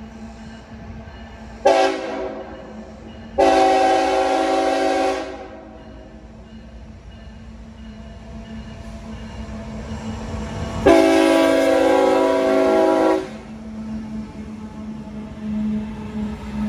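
Freight diesel locomotive's multi-chime air horn blowing three blasts, sounded for an upcoming grade crossing: a short one about two seconds in, a longer one soon after, and a long one about eleven seconds in. Beneath the horn, the locomotive's engine drone and the rumble of the loaded coal train grow louder as the locomotive draws up and passes close near the end.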